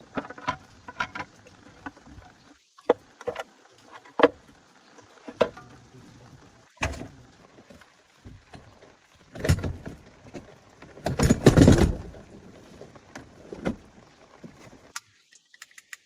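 Irregular knocks and clicks of hand work on a car, with a longer, louder clatter about two-thirds of the way through.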